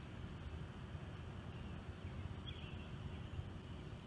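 Outdoor background noise: a low, steady rumble with a faint short chirp about two and a half seconds in.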